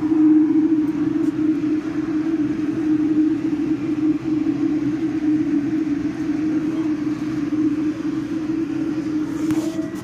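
MBTA Red Line subway train running, heard from inside the car: a loud steady rumble with a constant low hum. A brief click and a short high tone near the end.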